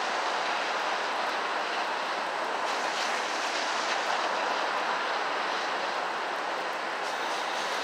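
Steady hiss of a rainy city street, rain and wet-road traffic blended into one continuous noise with no distinct events.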